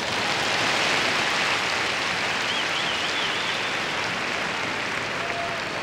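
Large arena crowd applauding a gymnast's uneven bars dismount. The clapping swells over the first second, then slowly dies away.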